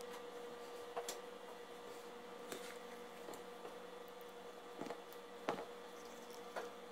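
Light taps and clicks of a plastic scoop and spatula as dough is scraped off into a bowl, about five of them, the loudest about five and a half seconds in, over a steady electrical hum.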